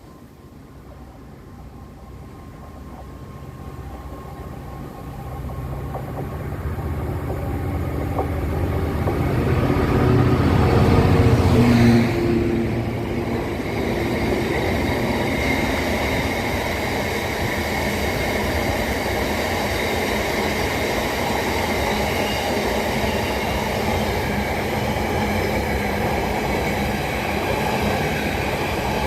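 Class 66 diesel locomotive hauling a freight train past at speed: the engine note grows louder for about twelve seconds, falls away suddenly as the locomotive goes by, and then the wagons keep up a long, steady rumble and clatter of wheels on rail.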